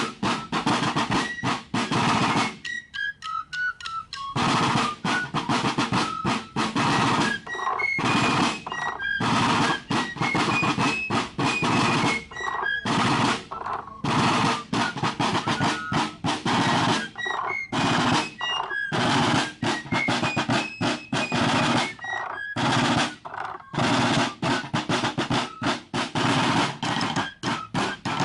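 Instrumental music with rapid, heavy drum and snare hits under a stepping melody line, without vocals; the drums drop out briefly a few seconds in.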